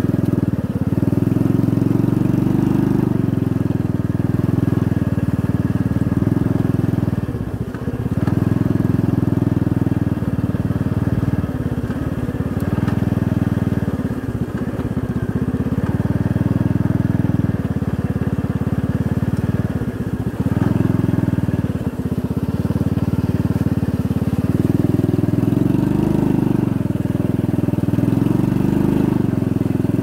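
Motorcycle engine running steadily while riding over a rough dirt track, easing off briefly a few times.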